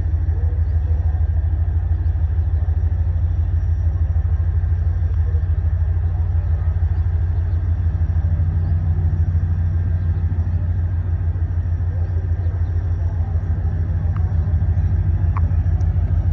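Train's diesel engine running with a steady, low, fast throb.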